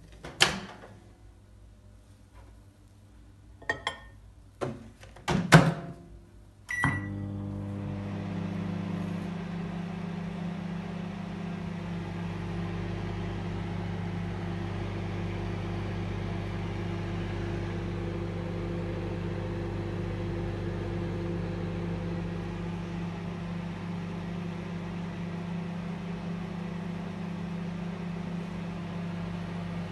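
Rolsen MS1770SC microwave oven: a few sharp clicks and knocks in the first seven seconds, a short beep, then the oven starts running with a steady low hum and fan noise that carries on without change.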